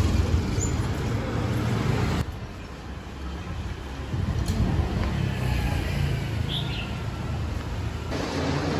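City street ambience: a steady low rumble of road traffic from passing vehicles. The sound drops abruptly about two seconds in and changes again near the end.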